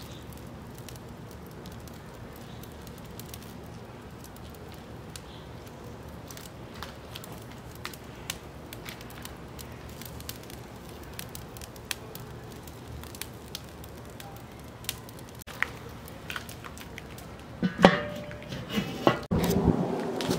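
Lump hardwood charcoal fire crackling under the turkey in a Weber kettle grill, with scattered small sharp pops over a low steady background. Near the end, a few louder knocks.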